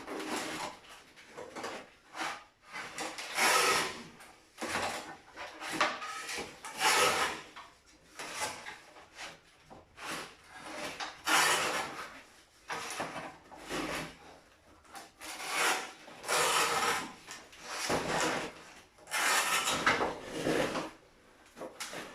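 Manual lever-action parquet cutter shearing through wooden parquet boards: a rough, rasping crunch of wood, repeated about every three to four seconds, with lighter sounds of the boards being handled between cuts.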